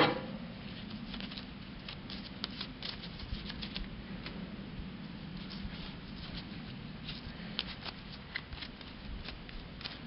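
Gloved fingers smearing grease onto a new ball joint and turning the metal part over: a run of small irregular clicks, taps and rubbing over a steady low hum.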